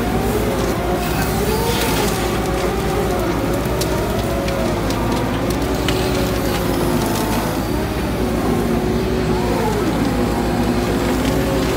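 Arjes Impaktor 250 shredder chewing a load of brush and branches, its engine running steadily with its pitch rising and falling under the load. Scattered sharp cracks and snaps of wood.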